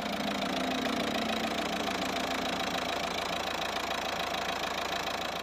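Volvo V50's 1.6-litre four-cylinder common-rail diesel idling steadily with the bonnet open, running on freshly fitted, newly coded injectors; it idles a bit more relaxed, with less vibration.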